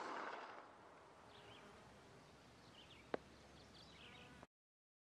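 Near silence just after a blank shot from a Short Magazine Lee Enfield rifle with a grenade discharger cup: the last of the shot's echo fades away in the first half second. Then only faint chirping and one soft click about three seconds in, before the sound cuts out completely near the end.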